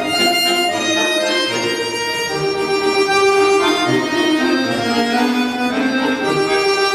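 Bayan (Russian chromatic button accordion) playing a waltz solo: a melody over sustained reed chords, with short low bass notes coming back about once a second.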